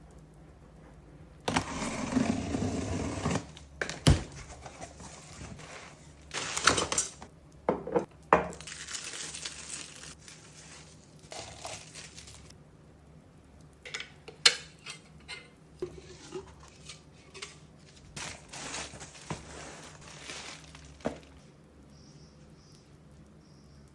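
Household handling sounds: a run of clicks, knocks and clinks like dishes and utensils being set down, mixed with short stretches of rustling.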